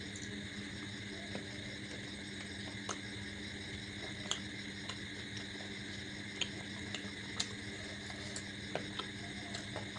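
Eating sounds: scattered sharp clicks and smacks of chewing and of food or fingers against the plate, about eight over the stretch. Under them runs a steady low hum and a steady high-pitched whine.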